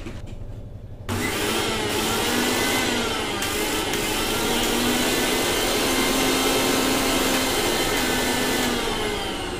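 USHA Microsmart Pro 750-watt mixer grinder switched on about a second in. Its motor runs at speed with the jar fitted, then is switched off near the end and starts to wind down.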